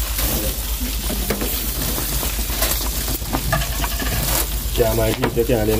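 Lobster sizzling steadily on a grill, with scattered light clicks.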